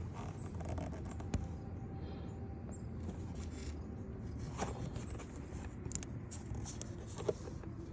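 Faint handling sounds: a few light clicks and scrapes over a low, steady background rumble.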